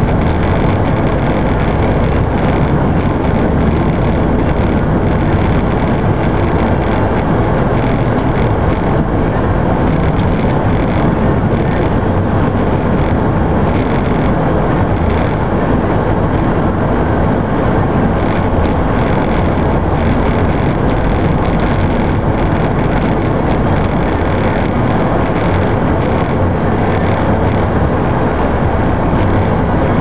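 Steady running noise of a car heard from inside the cabin, its tyres rolling on a snow-covered road.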